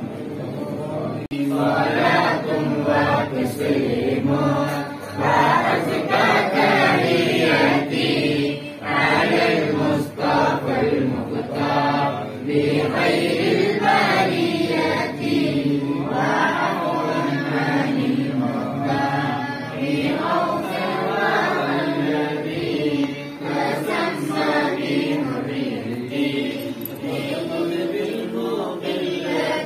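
A group of boys and men chanting Islamic devotional verses together in unison, in melodic phrases with short pauses between them; the chanting starts about a second in.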